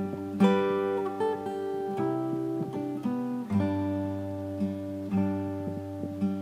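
Music: an acoustic guitar picking slow, ringing notes and chords over held low bass notes.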